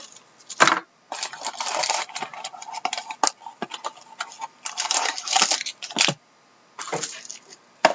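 Trading cards being handled and shuffled on a table: an irregular string of sliding rustles, small clicks and taps.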